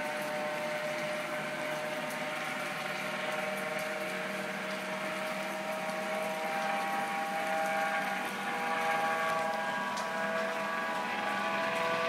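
Police helicopter flying overhead: a steady whine of several tones over rotor noise, the tones shifting slightly in pitch about halfway through as it moves.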